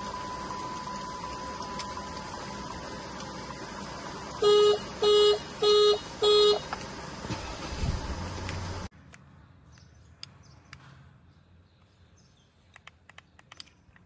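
2023 Ford Ranger Wildtrak's anti-theft alarm sounding the horn: four loud short honks about two-thirds of a second apart over a steady cabin hum with a faint high tone. The engine is then started, a brief low rumble, which is what silences the alarm; after that only a quiet hum and a few soft clicks.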